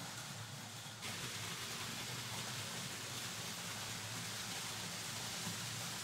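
Märklin H0 model trains rolling on vintage metal M-track: a steady hissing rumble of wheels on the tinplate rails with a low hum underneath, turning brighter and louder in the upper range about a second in.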